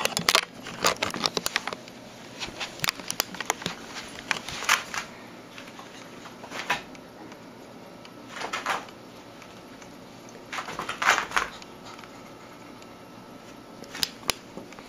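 Scattered soft scuffs, clicks and short rustling bursts with quiet stretches between: a kitten's paws scrambling on carpet and bedding as it chases a laser-pointer dot.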